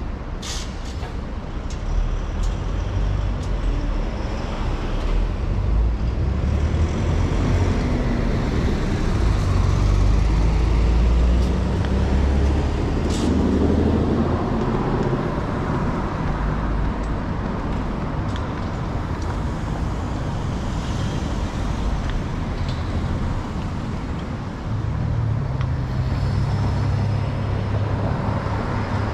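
Road traffic on a city street: a steady rush of passing vehicles, with a heavier low rumble swelling to its loudest about ten seconds in.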